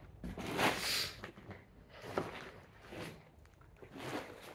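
Footsteps crunching and scuffing over debris on a littered floor, a few uneven steps with the loudest, longest crunch about a second in.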